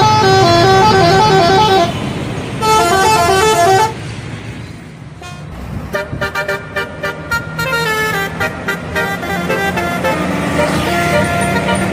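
Bus telolet horn, a multi-tone musical air horn, playing two quick melodic phrases in the first four seconds. After a short lull it sounds again from about six seconds in, as rapid stuttering toots. A low steady hum of the bus engine runs underneath.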